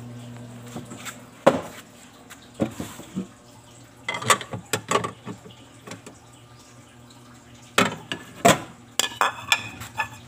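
Metal pots and utensils clinking and knocking: irregular sharp clinks, some in quick clusters.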